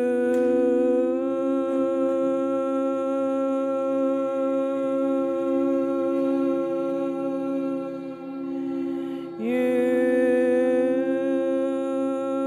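Meditative background music: a voice holds long 'ooh'-like notes, each sliding up into pitch, over a steady drone. A new note begins about nine seconds in.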